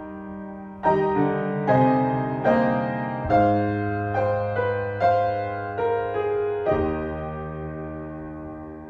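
Piano playing a slow passage of chords, roughly one struck about every second. Each chord fades after it is struck, and the last is held for about two seconds.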